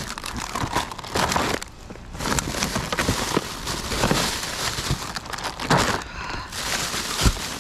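Plastic bags and packaging crinkling and rustling as trash is rummaged through in a dumpster, with scattered knocks.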